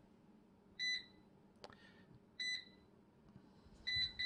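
Cosori air fryer's touch control panel beeping as its buttons are pressed to set the cooking time and temperature. There are two single beeps about a second and a half apart, then a quick run of beeps near the end.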